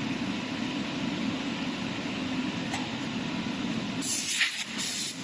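Steady low machine hum, then from about four seconds in a quick series of loud, short hissing blasts of compressed air.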